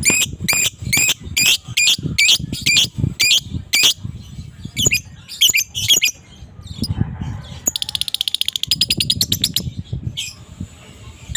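Adult fighter lovebird calling: a run of sharp, shrill chirps about twice a second, then scattered calls, then a fast rattling trill of about two seconds (the 'ngekek' chatter) near the end.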